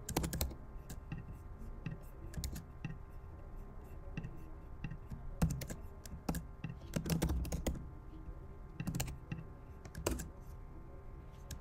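Typing on a computer keyboard: irregular key clicks, some bunched into quick runs of keystrokes.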